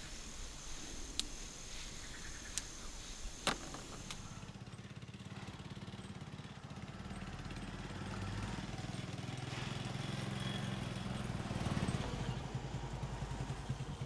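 Small motorcycle engine of a cargo tricycle running steadily, coming in about four seconds in and a little louder for a few seconds in the middle. Before it, a few sharp clicks over a steady high whine.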